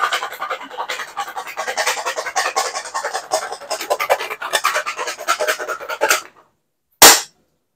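Garlic cloves rattling rapidly inside two stainless-steel bowls shaken hard together, the skins being knocked loose to peel them. The rattling stops suddenly about six seconds in, and a single loud sharp bang follows about a second later.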